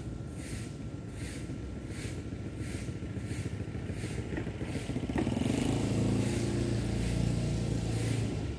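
A motor vehicle's engine hum swells in about five seconds in and stays loud until near the end, as if passing close by. Under it, a high hiss pulses steadily about one and a half times a second.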